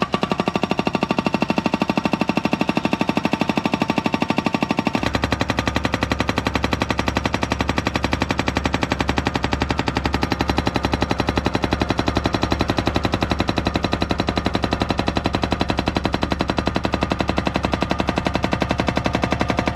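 Hydraulic breaker hammer on a Kubota mini excavator pounding into the ground, a rapid, steady stream of blows.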